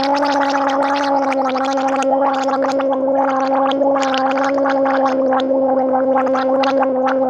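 A woman gargling salt water, voicing one long steady 'aah' through the water so that it bubbles rapidly.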